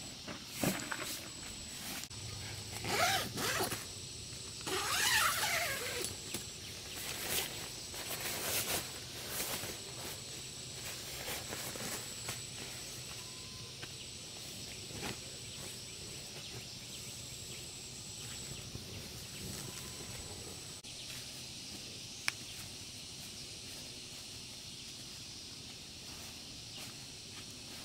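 Irregular rustling and scraping handling noises, loudest about three and five seconds in and thinning out after about ten seconds, over a steady high-pitched outdoor tone. After that, only a few scattered clicks.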